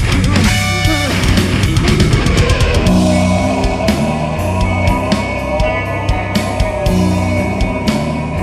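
Rock music with a drum kit and electric guitar over a steady beat. About three seconds in, a held, wavering melody line comes in over the drums and bass.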